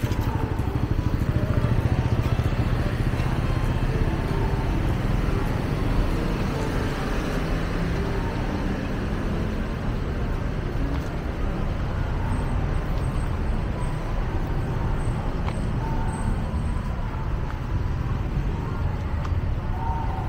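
Steady outdoor street noise dominated by motor-vehicle traffic, with faint voices in the background.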